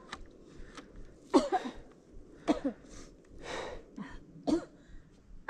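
A person coughing: a series of short coughs about a second apart.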